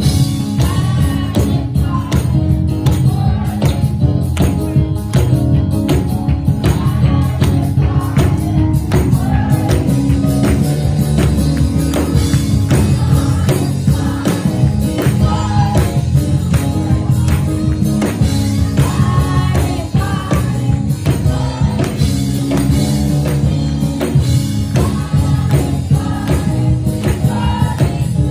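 Youth gospel choir singing over heavy bass and a steady percussion beat.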